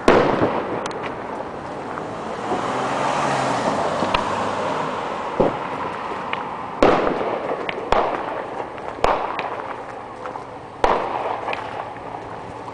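Aerial fireworks shells bursting: a loud bang at the start, then a run of about five more bangs a second or two apart from about five seconds in, each trailing off.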